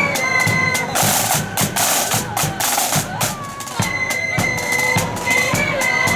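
Marching flute band playing: high flute melody over snare and bass drums. About a second in, the flutes drop out for nearly three seconds of drums alone, then come back in.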